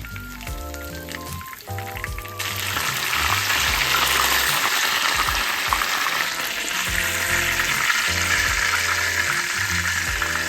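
Food sizzling loudly in hot oil in a pan, starting suddenly about two seconds in, with light background music.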